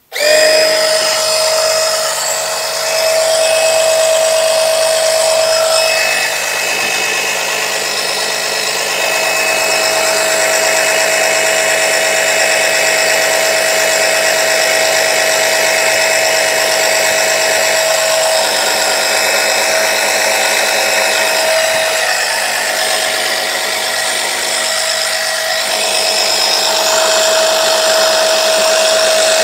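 Small battery-powered electric oil-extraction suction pump switched on, starting abruptly and running steadily with a whining tone. It is running but drawing no oil up the dipstick tube.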